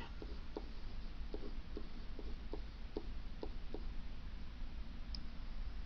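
Light ticks and taps of a stylus on a pen tablet while handwriting is written, about a dozen in the first four seconds, over a steady low hum.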